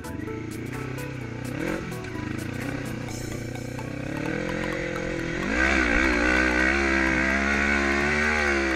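Yamaha Raptor 350 quad's swapped-in Honda CB500 motorcycle engine revving as it is ridden, its pitch rising and falling. About five and a half seconds in it gets louder and higher and is held there, pulling hard up a steep sandy climb.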